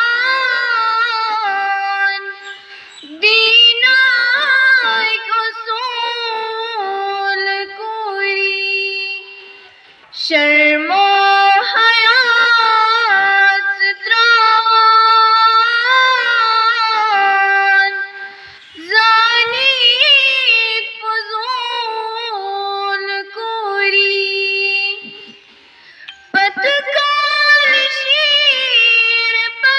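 A girl singing solo and unaccompanied into a microphone, in long held, wavering notes, line by line, with a short pause between phrases about every eight seconds.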